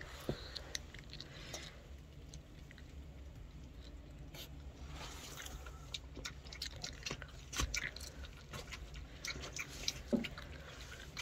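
Puppy eating milk-soaked dry kibble from a plastic bowl: wet lapping and chewing in irregular little smacks and crunches, a few louder ones late on.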